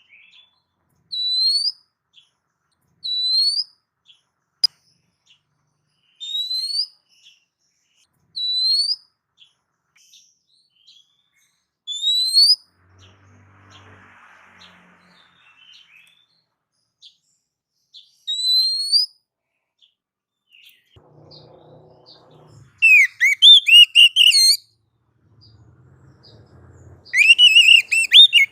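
Oriental magpie-robin (kacer) singing: clear single whistles, each sliding upward, spaced two to three seconds apart, then near the end two louder, rapid runs of varied, tumbling notes.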